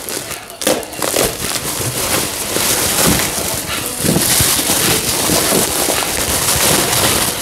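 Plastic bubble wrap rustling and crinkling as it is cut open with a knife and pulled off a coilover part, a dense run of small crackles.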